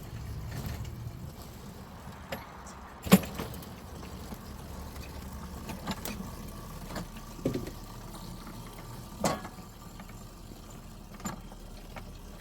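A low engine rumble with a few sharp metal clanks and knocks, the loudest about three seconds in.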